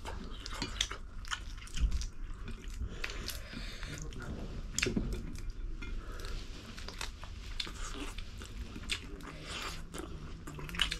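Close-miked eating of spicy ramen noodles, prawns and eggs: irregular chewing and biting, many short mouth clicks and smacks.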